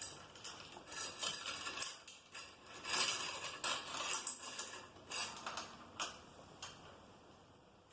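Light metallic clinking and rattling of bicycle drivetrain parts being handled during a derailleur and chain removal: quick clusters of small clicks, busiest in the first half, thinning out and dying away near the end.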